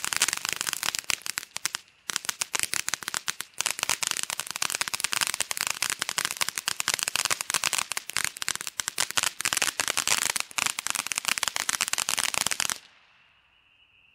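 Ground fireworks fountain (Rizer 'Fantasy') spraying sparks with dense rapid crackling, briefly thinning twice early on, then stopping abruptly near the end as the fountain burns out. Faint steady insect chirring remains after it stops.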